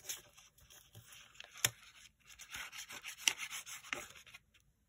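Nozzle of a liquid glue bottle scraping and rubbing along a brown paper bag as glue is laid down, with the paper shifting under the hand. There are two sharp taps, one about a second and a half in and one about three seconds in.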